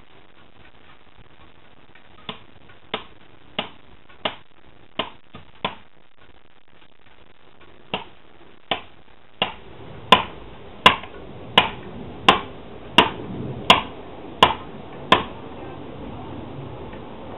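Hammer striking a felling wedge driven into the tree trunk: sharp, even blows about one and a half a second, six of them, a pause of about two seconds, then eleven more that grow louder.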